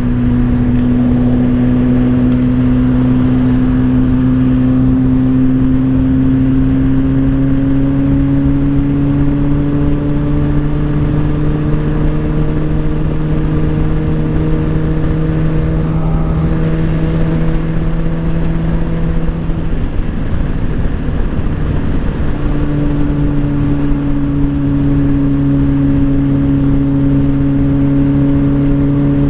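Motorcycle engine pulling at a steady cruise under a constant rush of wind. Its note rises slowly for about twenty seconds, drops briefly, then holds steady again.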